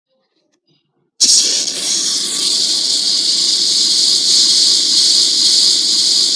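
Flamethrower sound effect: a loud, steady hissing rush of flame with a low rumble beneath, starting abruptly about a second in.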